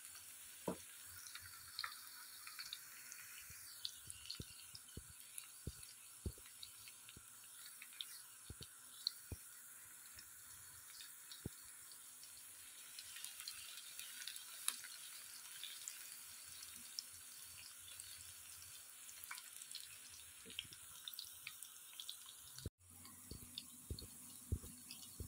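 Sliced onions frying in hot oil in a wok: a faint steady sizzle with scattered crackles and light taps of a wooden spatula, as the onions are lightly browned.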